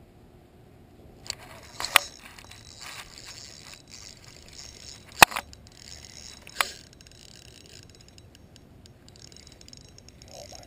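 Close handling of a spinning reel and its fishing line: a rustling scrape with several sharp clicks, the loudest about five seconds in.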